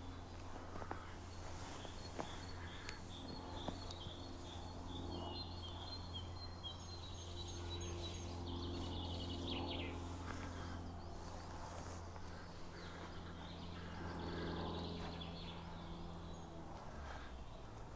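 Small birds chirping over a steady low hum, with a run of quick, high chirps around the middle.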